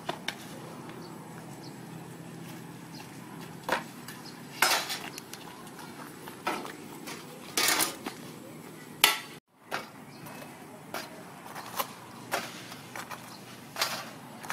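Metal kitchenware clinking and knocking at irregular intervals, about nine sharp knocks in all, as grilled bread and utensils are handled on a steel tray and grill grate. The sound drops out for a moment about nine and a half seconds in.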